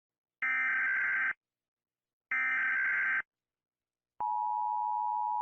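Emergency Alert System broadcast: two harsh, buzzing bursts of digital header data, each just under a second long, then the steady alert tone starts about four seconds in and holds.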